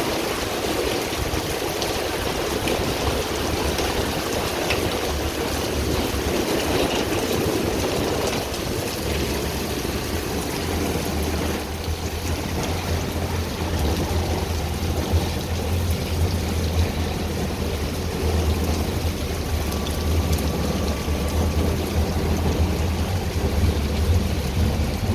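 Rain falling in a city street with water running and splashing, a dense even hiss. A low steady rumble joins about ten seconds in and continues.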